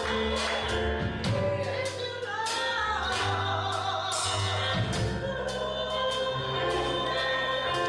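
Gospel music: voices singing held, wavering notes over a steady bass accompaniment with a regular beat.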